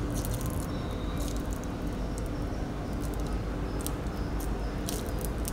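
Steady low electrical hum under room noise, with a few faint light ticks.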